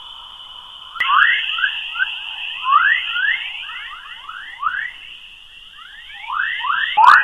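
Sonified space recording presented as the sound of Earth: waves from Earth's magnetic field converted into audio. It is heard as a steady high tone with quick rising chirps, several a second, like birdsong. A click about a second in, after which it gets louder.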